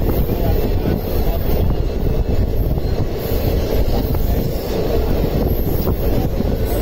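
Express passenger train running along the track: a steady low rumble of wheels on rail, with no distinct clicks or horn standing out.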